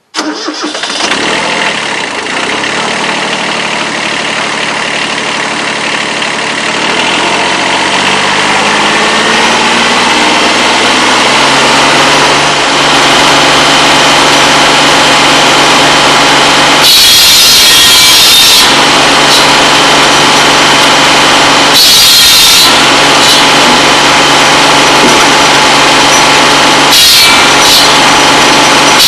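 A tractor-driven buzz saw (cordwood saw) running. The engine and blade start abruptly and climb in pitch over the first dozen seconds, then run at a steady speed. In the second half the blade cuts through pole wood three times: a longer cut, then two short ones, each a loud hissing rasp over the drone.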